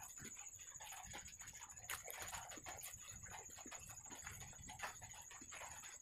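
A person chewing bread and curry close to the microphone, with wet mouth clicks and smacks at irregular intervals. A faint steady high-pitched whine sits underneath.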